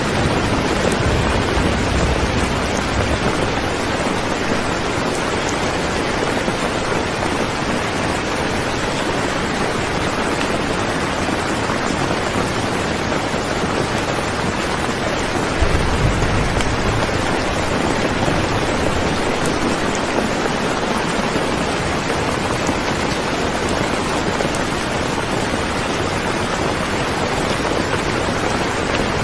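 Steady rain falling, a dense even hiss, with low rumbling swells about a second in and again around sixteen seconds.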